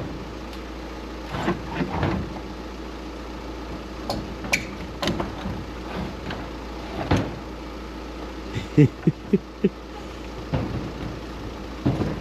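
A vehicle engine idling steadily, with scattered knocks and clatters from things being handled, and a quick run of four low thumps about nine seconds in.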